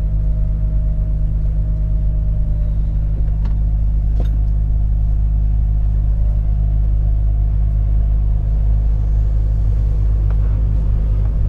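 Volvo FH 460 truck's 13-litre six-cylinder diesel engine running steadily while the truck drives, heard from inside the cab as a low, even drone.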